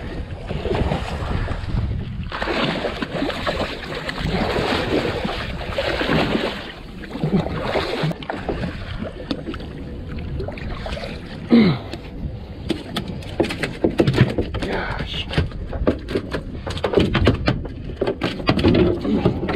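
Rushing wind and water noise aboard a small fishing boat on open water. About twelve seconds in, a run of sharp knocks and taps begins.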